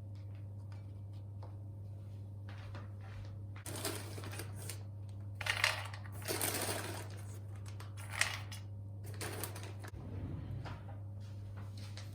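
Objects being handled: faint clicks, then several short bursts of rustling and light clatter, over a steady low hum.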